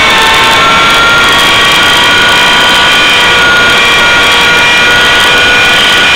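Align T-Rex 600 CF radio-controlled helicopter in flight, heard through its on-board camera: a loud, steady mechanical whine with several high tones that drift slightly up and down in pitch.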